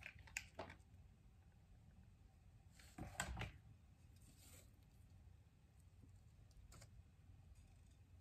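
Near silence: room tone, with a few faint clicks and rustles from handling a wooden craft spoon and small craft pieces. The loudest is a short clatter about three seconds in.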